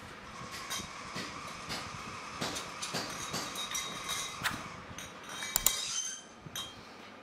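Red-painted metal motorcycle shock absorber cover tubes being picked up and set down on a cloth-covered floor, with irregular knocks and short ringing clinks as they touch one another; the sharpest clink comes near the end. A faint steady whine sits underneath for the first half.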